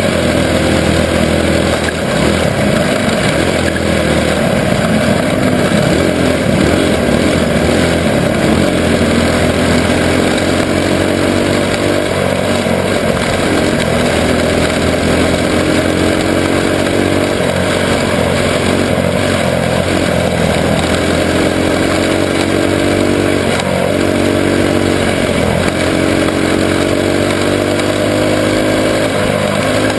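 Junior sprint car's engine at racing speed, recorded up close from a camera on the car. Its pitch rises and falls repeatedly as the throttle opens and closes.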